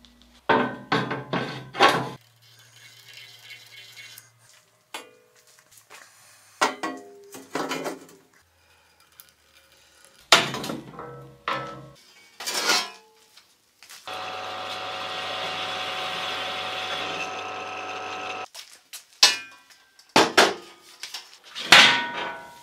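Metal workshop sounds: steel parts clanking and knocking against each other, each hit ringing briefly. About two-thirds of the way through, a tool runs steadily with a low hum for about four seconds, then stops suddenly.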